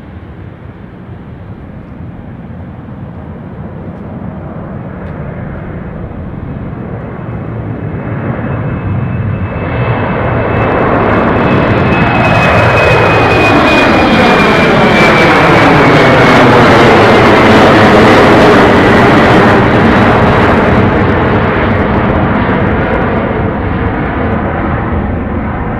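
Embraer E190 jet's twin turbofan engines at take-off power. The rumble builds as the aircraft rolls and lifts off and is loudest as it climbs past, with a high engine whine that falls in pitch, then it slowly fades.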